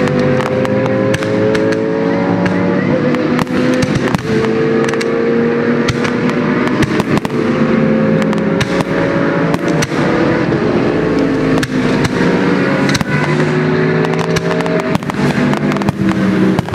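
Fireworks bursting overhead with many sharp bangs and crackles, over GT race car engines running hard on the circuit. The engine notes climb steadily and drop back at each gear change, several times over.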